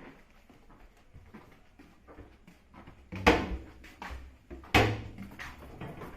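Knocks and clatter inside a moving MEMU train coach: two loud knocks about a second and a half apart, with softer knocks around them.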